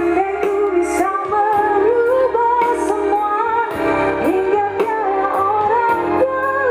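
A woman singing a wavering, ornamented melody over instrumental accompaniment.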